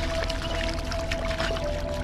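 Background music with sustained held tones.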